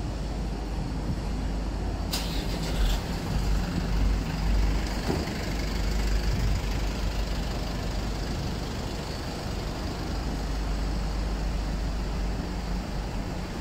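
Busy city street traffic: a steady rumble of passing buses and other vehicles, with a short, sharp air-brake hiss about two seconds in.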